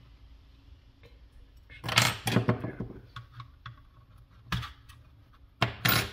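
Clicks and rattles of small parts being handled: the plastic housing and circuit board of a ThinkPad Thunderbolt 3 dock knocked about while metal tweezers work a small internal connector loose. The clicks come in a cluster about two seconds in and another near the end, with a single click in between.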